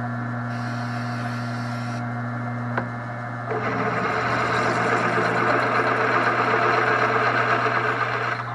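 Wen floor drill press motor running with a steady hum. About three and a half seconds in, a 3/8-inch twist bit starts cutting into metal, adding a louder, rough cutting noise that continues until near the end.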